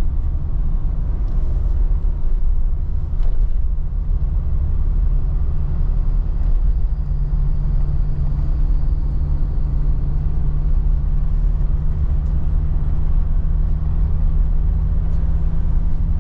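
Cabin noise of a passenger van driving at road speed: a steady low rumble of engine and tyres. A steady engine hum grows stronger about halfway through.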